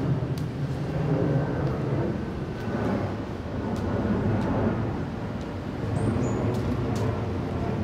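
Street ambience: a low, steady rumble of passing road traffic that swells and fades a couple of times.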